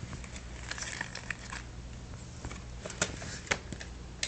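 Scattered light clicks, taps and rustles of small objects being handled, over a faint steady low hum; the sharpest clicks come about a second in and around three seconds.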